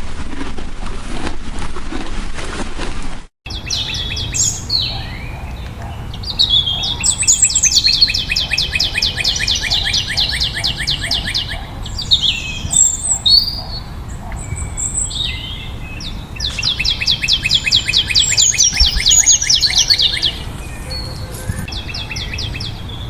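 A songbird singing long, rapid trills of quickly repeated high notes with swooping glides, in two long bouts separated by shorter calls. A steady rushing noise comes before a sudden cut about three seconds in.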